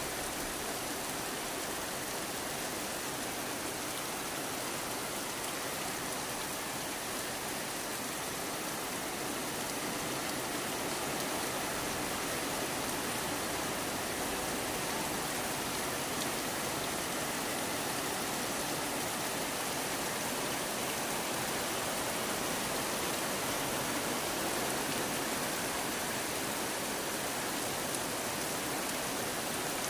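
Steady rainfall, an even hiss with no breaks or changes in level.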